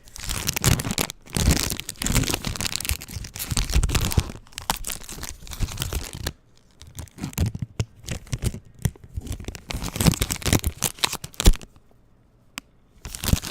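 A Pokémon booster pack's foil wrapper crinkled and crumpled by hand in irregular crackling bursts. It runs for about six seconds, dips briefly, picks up again, stops, and comes back in one short burst near the end.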